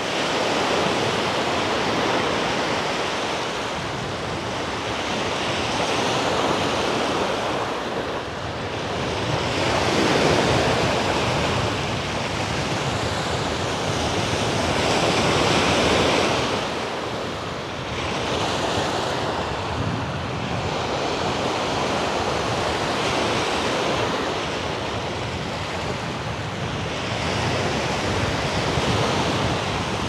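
Black Sea surf breaking on a sandy beach: a steady wash of waves that swells and eases every four to five seconds.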